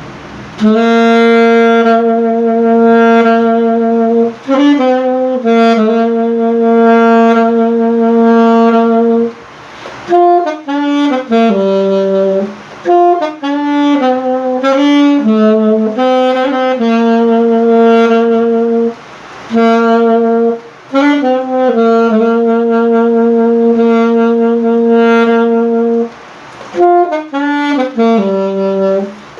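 Lade alto saxophone being played: a slow melody of long held notes joined by short runs of quicker notes, broken by a few brief pauses for breath.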